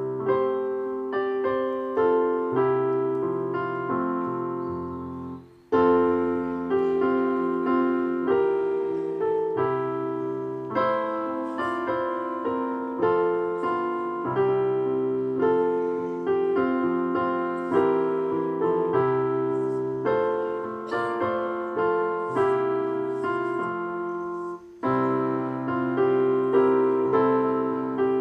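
Piano playing a hymn in full chords at a steady pace, phrase by phrase, with two short breaks between phrases, about five seconds in and near the end.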